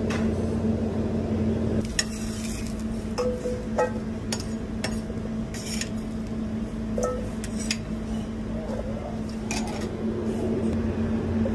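Metal utensils clinking and scraping: a spatula on a flat-top griddle and fried fingerling potatoes clattering into a stainless steel bowl, a run of sharp clinks and knocks, some briefly ringing. Under them is a steady low hum.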